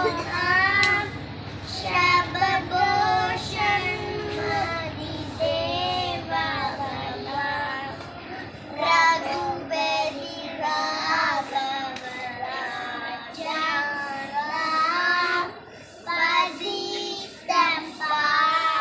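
Children singing a school prayer song, the melody moving in phrases with short breaks between them.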